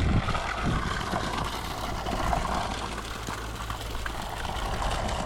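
Solar-powered well pump running steadily, with water gushing out and a constant low hum, on its first run from the new solar system.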